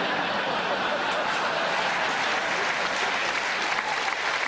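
Studio audience applause, a steady dense clapping that greets the sketch's punchline.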